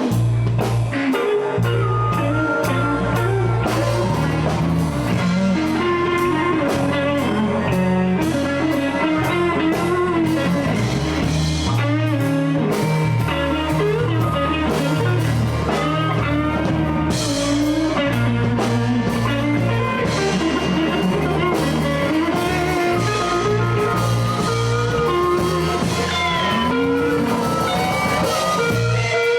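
Live blues band playing an instrumental passage: guitar lines bending over a steady bass line and drum kit.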